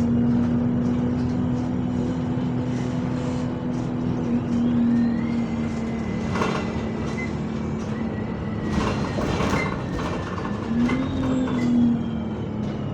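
Bus heard from inside the saloon: a steady engine and drivetrain hum with a thin gearbox whine that rises in pitch and then slowly falls away, plus a few brief rattles from the body.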